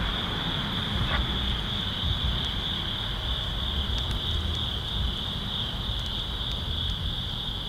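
Crickets trilling steadily, a high unbroken tone, over a low rumble.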